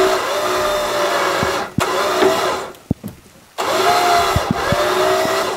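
Warn electric winch on the truck's front bumper whining under heavy load as it drags a shed over the ground. It runs, stops for about a second near the middle, and starts again.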